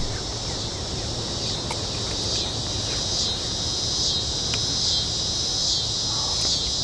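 A steady, high-pitched chorus of chirring insects that swells in a regular pulse a little faster than once a second.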